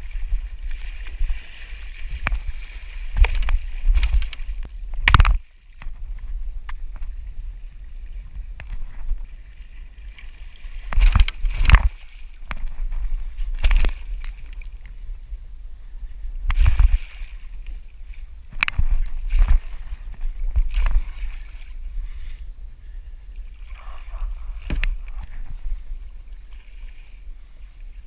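Sea water splashing and sloshing around a plastic kayak as sharks thrash at the surface beside it, with a dozen or so sudden sharp knocks and splashes spread through, the loudest about five seconds in and again about eleven seconds in, over a steady low rumble.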